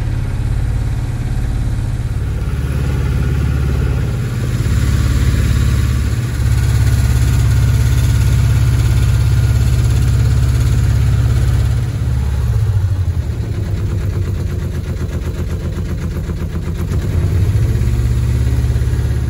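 A small motorboat's engine running steadily while the boat is under way, heard from on board. The sound is a loud low drone. It eases slightly about two-thirds of the way through and swells again near the end.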